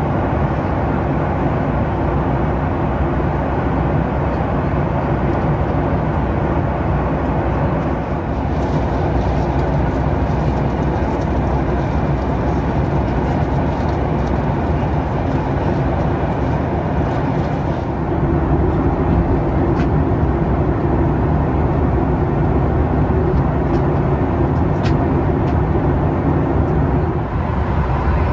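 Steady cabin drone of a Boeing 737 MAX 8 in cruise at about 37,000 ft: rushing airflow over the fuselage and the hum of its CFM LEAP-1B turbofans, heard from inside the cabin. The drone grows slightly louder about two-thirds of the way through, with a few faint ticks.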